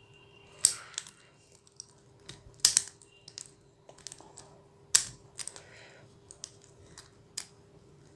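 Irregular plastic clicks and snaps as pieces of a MoYu MF3RS 3x3 speed cube are pried out during disassembly, with a few sharper clicks among lighter ones.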